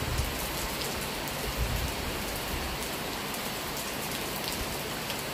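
Steady rain falling on trees and grass, with scattered drops ticking close by. A low rumble comes and goes in the first few seconds.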